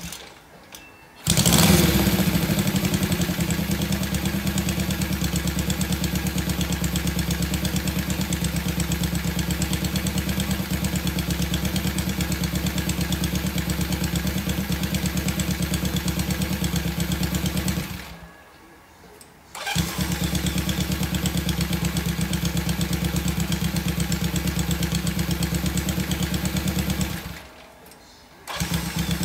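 Honda CB72's parallel-twin engine, breathing through CL-style twin exhausts, starting about a second in and then idling with a steady, rapid beat. Partway through it dies away and is restarted, and near the end it stops and starts once more.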